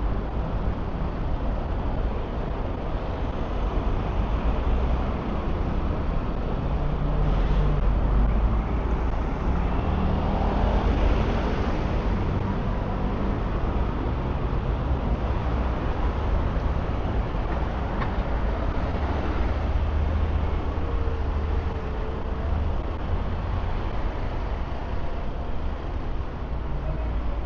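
Road traffic on a busy city street: a steady rumble of passing engines and tyres that swells as a vehicle goes by about eight to twelve seconds in.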